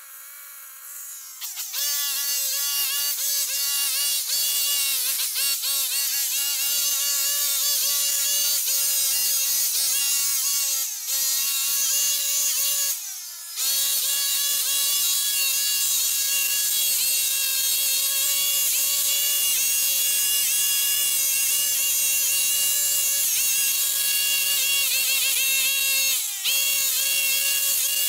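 Petrol grass trimmer (brush cutter) running at high revs while cutting grass: a steady high-pitched engine whine. It comes up a couple of seconds in and drops off briefly about eleven and thirteen seconds in and again near the end, as the throttle is eased.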